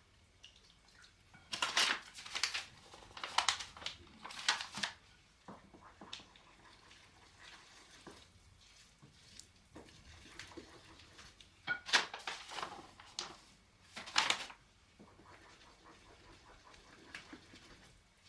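Short bursts of scraping and rustling from flour being added and stirred into a soft yeast dough in a bowl, three close together early on and two more about ten seconds later.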